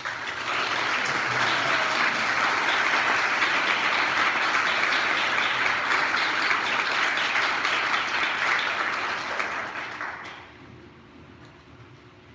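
Audience applauding, starting suddenly and dying away after about ten seconds.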